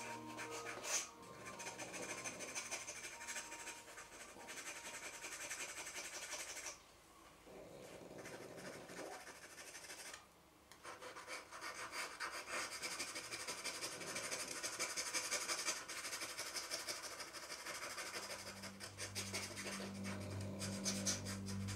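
Pen nib scratching and rubbing across drawing paper in quick, continuous ink strokes, pausing briefly twice, about a third of the way through and again near the middle.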